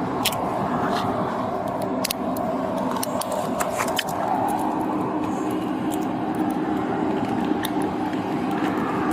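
A vehicle engine idling steadily, with scattered sharp clicks and light metallic rattles over it.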